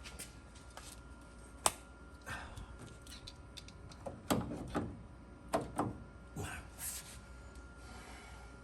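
Intermittent clicks, knocks and rustling of hands setting up tools and parts, with one sharp click about two seconds in and clusters of knocks past the middle, over a faint steady hum.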